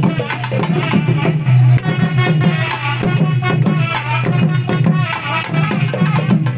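South Indian folk band music: long brass horns sounding a sustained, reedy melody over fast, steady drumming.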